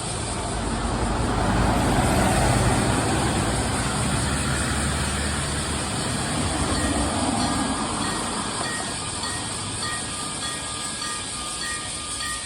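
Randen tram passing over a level crossing, its running noise swelling to a peak about two seconds in and then easing off. From about two-thirds of the way through, the crossing's warning signal sounds: a rapid, repeating high electronic tone, the crossing's unusual-sounding alarm.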